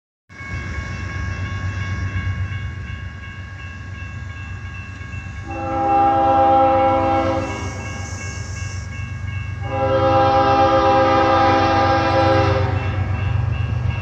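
Diesel freight locomotive's air horn sounding two blasts, a shorter one about five and a half seconds in and a longer one about ten seconds in, over the low rumble of the approaching locomotives, which grows louder near the end. A steady high ringing from the grade crossing signal runs underneath.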